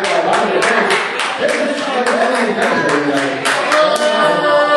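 Wrestling crowd clapping rapidly, about three to four claps a second, with voices shouting over it and one voice holding a long call near the end.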